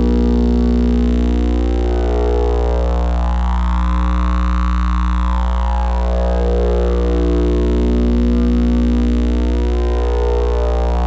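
Electronic oscillator drone: a steady low hum under a dense stack of sustained tones. A higher sweeping tone slowly rises and falls in the middle and begins rising again near the end.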